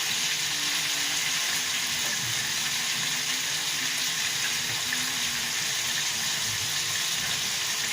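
Chicken breast pieces sizzling steadily in butter and olive oil in a pan over high heat.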